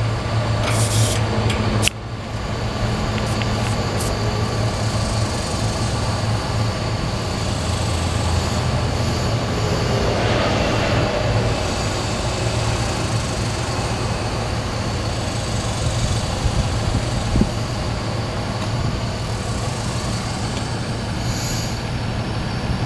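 M.G. Newell barrel dumper and crusher/grinder running under its electric motors: a steady low machine hum with mechanical rattle while the barrel cradle tilts up to dump.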